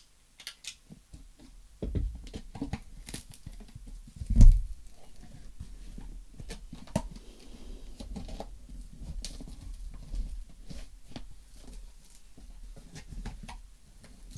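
A cardboard shipping box being opened and handled by hand: scattered scrapes, taps and clicks of cardboard and packing, with one heavy thump about four and a half seconds in.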